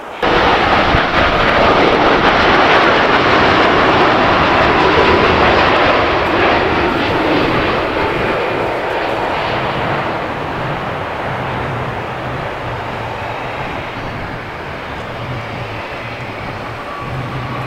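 Boeing 787 Dreamliner's jet engines as the airliner comes in low on final approach and lands. A loud, steady roar starts abruptly, is loudest for the first several seconds, then slowly fades as the plane rolls out on the runway.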